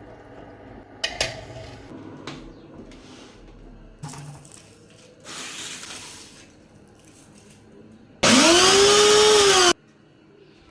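Kitchen blender run in one short pulse of about a second and a half, its motor pitch rising and then falling before it stops abruptly. Before it come a couple of sharp clicks and some quieter handling and rustling.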